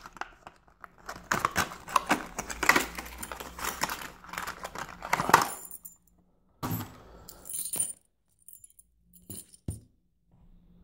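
A metal padlock and its keys being taken out of plastic packaging. There are about six seconds of continuous clicking, rattling and metallic jingling, then a pause and a few shorter rattles and clicks.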